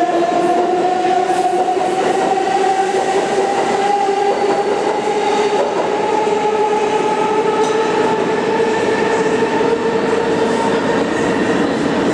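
New York City Subway R142A train pulling along the platform, its traction motors giving a steady whine that climbs slowly in pitch as the train picks up speed, over the rumble and clatter of wheels on the rails.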